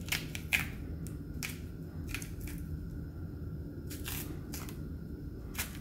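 Green banana skin being peeled off by hand, the thick peel breaking away in pieces with several short, separate cracks and tearing sounds over a low steady hum.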